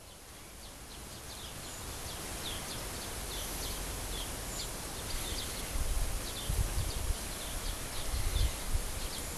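Small birds chirping in many short, high notes over a steady outdoor hiss, with a few low rumbles in the second half.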